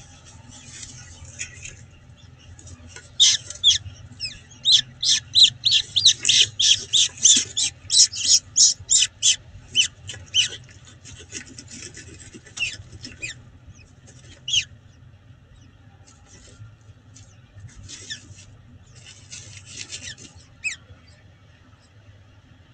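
Peregrine falcon calling at the nest in a rapid series of sharp, high notes, about three a second, for several seconds starting about three seconds in. A few scattered notes follow later, over a faint steady low hum.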